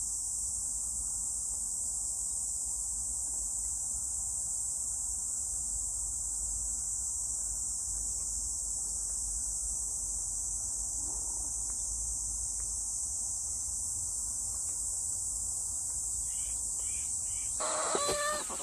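A steady, high-pitched chorus of insects buzzing without a break. About a second before the end, chickens start clucking.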